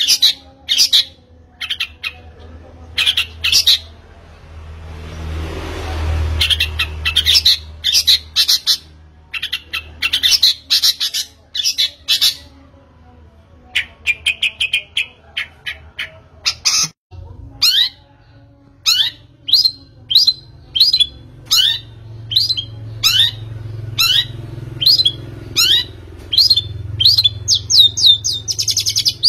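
Birds calling: clusters of short, sharp high chirps, then from just past the middle a steady run of quick downward-sliding notes, about two a second. A rushing swell of noise rises and fades early on, under a low steady hum.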